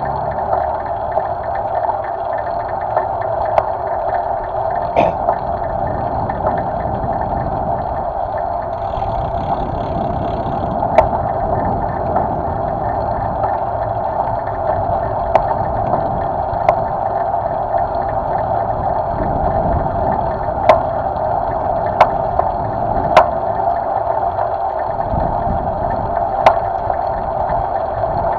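Steady rushing wind and road noise on a handlebar-mounted camera of a moving bicycle, with occasional sharp knocks and rattles as the bike rides over the asphalt.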